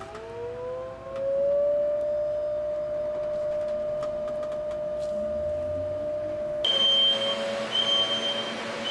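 All-electric school bus's electric drive motor whining as the bus pulls away: the whine rises in pitch over the first second and a half, then holds steady. About two-thirds through, a louder hiss comes in with a high steady whine over it.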